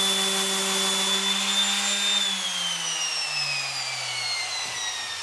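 Electric palm sander running steadily against the painted fiberglass body of a golf cart. About two seconds in it is switched off, and its motor winds down with a slowly falling whine.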